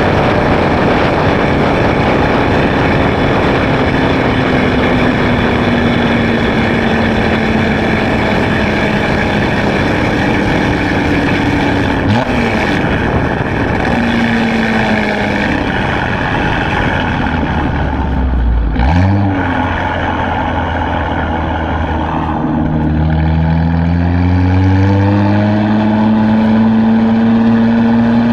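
2016 Chevrolet Camaro RS with a Borla ATAK axle-back exhaust being driven, its engine note running over a heavy rushing noise. The pitch sags a little under halfway through, rises and falls quickly about two-thirds through, then climbs steadily as the car accelerates over the last several seconds.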